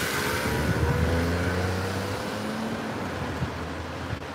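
A motor vehicle passing on the street: a steady rushing noise with a low engine hum whose pitch climbs slowly, fading toward the end.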